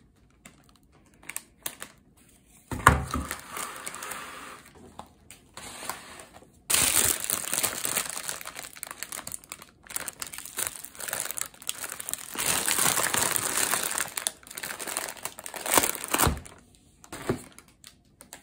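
Plastic grocery packaging and produce bags crinkling and rustling as groceries are handled and unpacked, with a knock about three seconds in.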